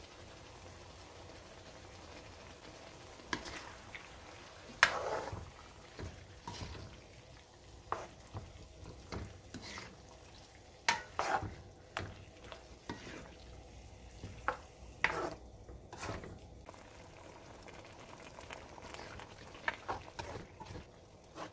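A black cooking spoon scraping and knocking against a metal wok as squid pieces are stirred in a simmering sauce. Irregular clacks start about three seconds in, over a faint steady sizzle.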